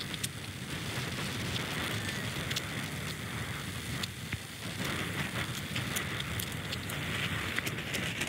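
Storm runoff rushing out through a breached beach sand berm along a freshly eroded sand bank: a steady wash of moving water with many small crackling ticks.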